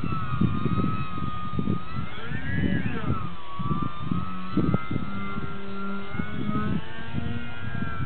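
Skeeter 36 radio-controlled model airplane in flight: its motor and propeller give a steady high whine that swoops up in pitch about two and a half seconds in and drops back a second later. Wind buffets the microphone with low gusty rumbles throughout.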